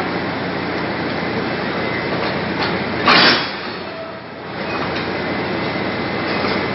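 Diesel locomotive R101 running steadily at a standstill, cut about three seconds in by a short, loud hiss of compressed air from the train's air system.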